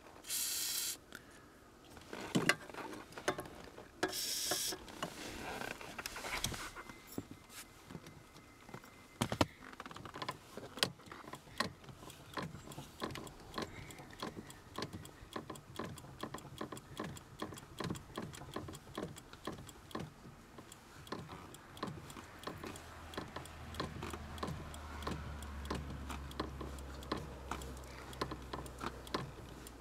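Two short hisses of a WD-40 aerosol spray aimed at a clutch-pedal return spring that had been squeaking, followed by a long run of small clicks and knocks. A low steady hum comes in about two-thirds of the way through.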